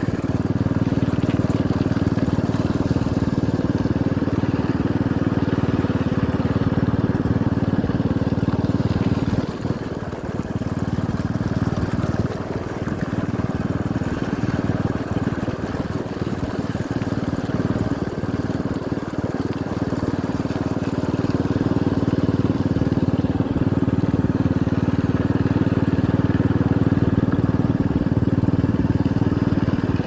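Motorcycle engine running steadily while riding along, with a brief easing of the engine about a third of the way through.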